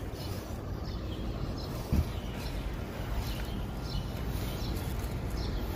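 City street ambience: a steady low rumble of traffic and outdoor noise with small birds chirping now and then, and a short thump about two seconds in.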